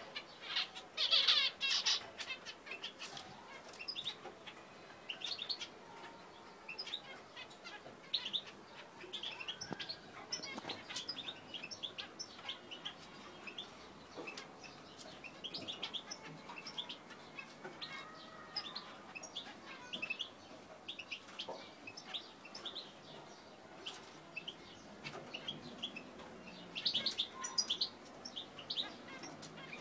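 Zebra finches chirping: many short, high calls scattered throughout, with louder bursts of chirping about a second in and again near the end.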